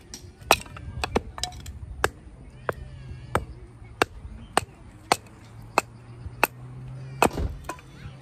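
Firewood being split: a steady run of sharp chopping strikes, about one every two-thirds of a second.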